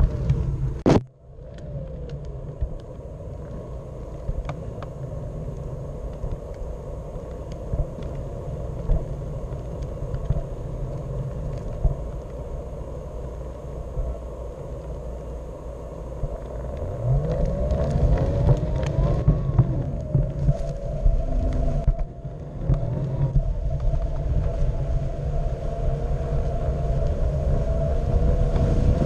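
Radio-controlled car driving over concrete and grass: a steady rumble from its tyres, with the motor's whine rising and falling in pitch as it speeds up and slows, most clearly in the second half.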